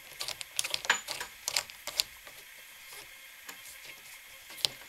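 Light metallic clicks and taps as the threaded metal end of a washing-machine hose is screwed by hand onto a brass drain valve. There is a quick run of clicks in the first two seconds, then only a few.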